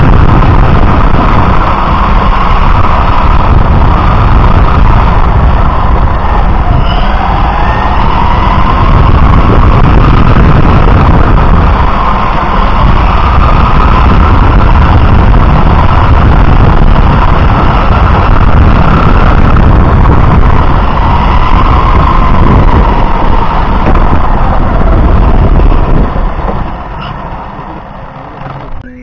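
Radio-controlled car heard from its own onboard camera: a loud rumble of tyres on asphalt and wind on the microphone, with the motor and drivetrain whine rising and falling as it speeds up and slows through the corners. Near the end the sound drops much quieter as the car slows.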